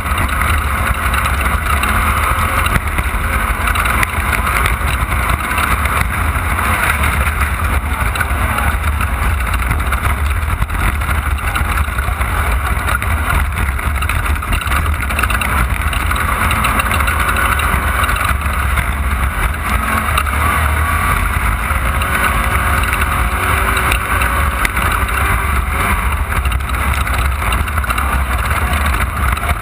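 Off-road race car's engine running hard at speed, with a steady low rumble and road noise from driving over rough, wet dirt.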